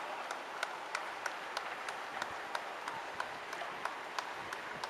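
Spectators clapping for passing runners: scattered, uneven hand claps, a few a second, over a steady outdoor hiss.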